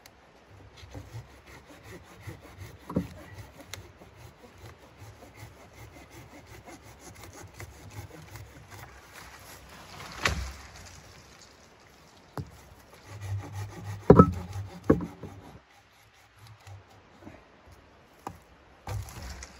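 Folding hand saw cutting through a tree branch: quick rhythmic back-and-forth strokes through wood. A sharp crack comes about ten seconds in, then a loud burst of strokes and hard knocks a few seconds later, a short pause, and a few more strokes near the end.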